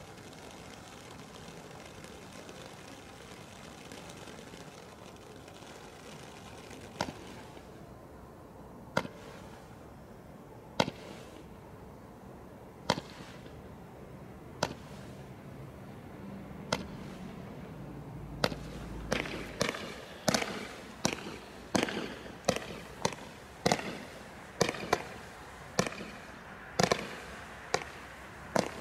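Consumer fireworks from a Bright Star Carnival selection box: a fountain hissing steadily, then single sharp cracks about every two seconds. Past the middle these become a faster string of cracks, two or three a second, as a multi-shot item fires stars into the air.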